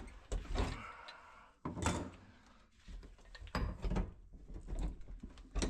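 Irregular knocks, scrapes and clanks of a wrench and metal gas pipe fittings being handled while a fitting is worked loose; the loudest knocks come a little under two seconds in and again near the end.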